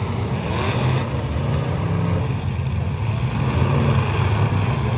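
Several demolition derby cars' engines running together, a steady low engine noise with some revving rising and falling over it.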